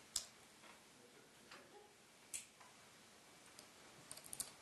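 Quiet room with a few sharp clicks: one shortly after the start, another a little past halfway, and a quick run of four or five near the end.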